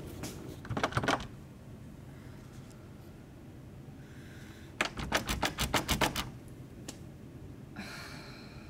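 A locked door's handle tried and rattled: a short cluster of clicks about a second in, then a faster run of about ten clicks midway, followed by a sigh near the end.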